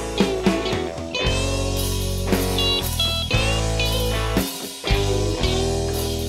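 Background rock music: guitar with sliding, bent notes over a steady bass and drums.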